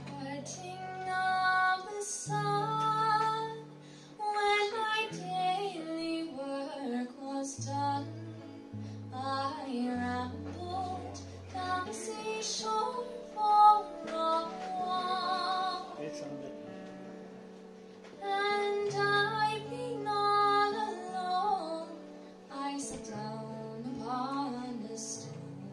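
A woman singing a song live while strumming an acoustic guitar.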